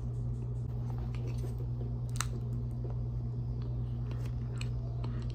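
Chewing a mouthful of cornstarch: soft, scattered crunches and clicks, with one sharper crunch about two seconds in, over a steady low hum.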